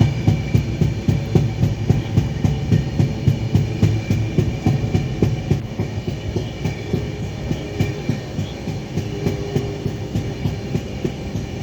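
Train running on rails: a steady low rumble with fast, even thumping a few times a second.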